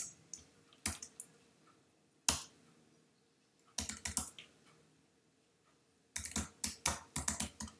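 Computer keyboard keystrokes: a few single key presses spaced about a second apart, a short burst of typing about four seconds in, then a quicker run of keystrokes near the end.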